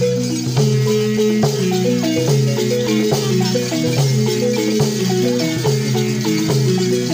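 Balafons, West African wooden xylophones with gourd resonators, playing a fast, repeating melody of short struck notes.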